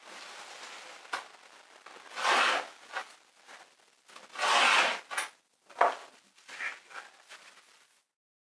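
Utility knife drawn through an EVA foam floor mat along a straightedge: two long slicing strokes, with a few sharp clicks and knocks between them.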